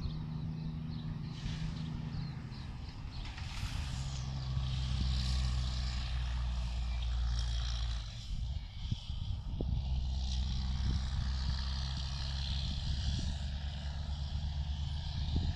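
Diesel locomotive engine heard from a distance as the train approaches: a low steady drone whose pitch shifts about a second in and again about 8 seconds in.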